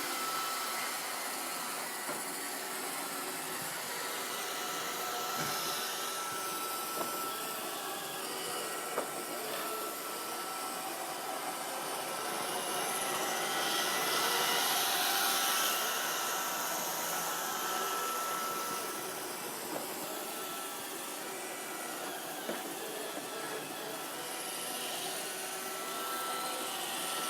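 iRobot Roomba 531 robot vacuum running: a steady whirring with a thin high whine and a few faint clicks, growing louder for a few seconds around the middle.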